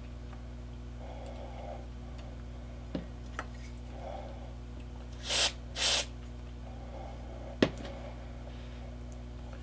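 Two short hisses of super glue accelerator sprayed from a can, each about half a second, in the middle. A few light clicks of small wooden parts being handled, with one sharp tap near the end the loudest sound, over a steady low hum.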